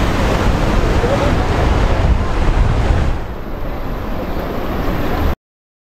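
Wind buffeting the microphone outdoors: a loud, steady rushing rumble, heaviest in the low end, that eases slightly about three seconds in and cuts off suddenly near the end.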